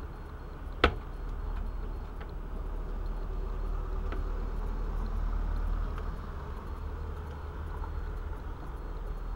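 Steady low rumble and hiss, with one sharp click about a second in.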